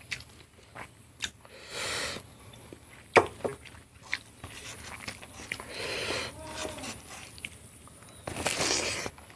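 Close-up mouth sounds of a person eating rice and boiled pork by hand: chewing with wet lip smacks and sharp clicks. Three longer breathy, hissing sounds come about two, six and eight and a half seconds in.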